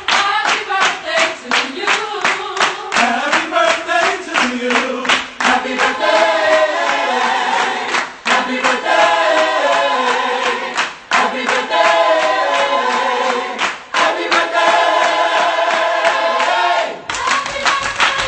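Choir singing with hand clapping on a steady beat, about two to three claps a second. The singing breaks off abruptly near the end, leaving mostly clapping.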